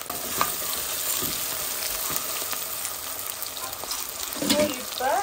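Sliced onions, green chillies and mint sizzling in hot oil in a nonstick kadai, stirred with a wooden spatula. A short pitched sound comes near the end.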